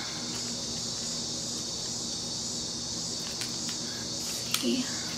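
Steady, even high-pitched hiss of background noise with a faint low hum under it, and a few faint small clicks near the end.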